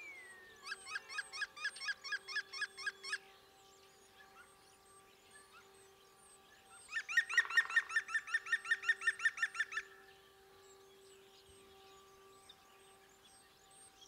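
European green woodpecker giving its laughing 'yaffle' call: two runs of rapid, evenly repeated ringing notes of about three seconds each, the second louder and faster.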